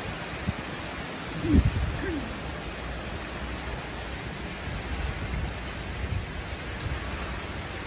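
Steady hiss of heavy wind-driven rain, with a brief louder low burst about a second and a half in.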